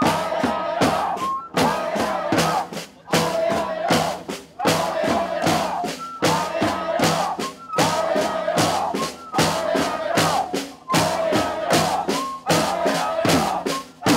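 A protest crowd chanting a short slogan in rhythm, led through megaphones, with hand-held drums beating the time; the call repeats about every second and a half.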